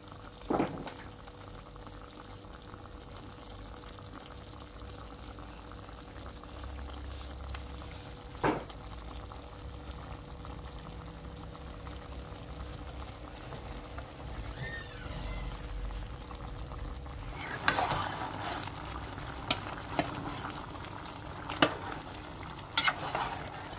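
A pot of brown stew chicken simmering, its sauce bubbling steadily. Sharp clicks of a metal utensil against the pot come once or twice early on and then several times in the last six seconds.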